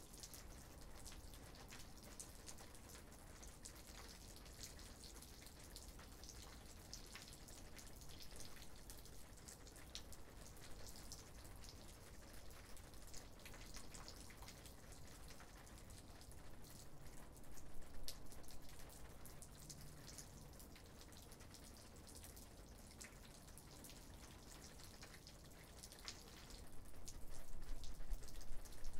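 Light rain, with scattered drops ticking faintly and irregularly. A low rumble swells briefly partway through and again near the end.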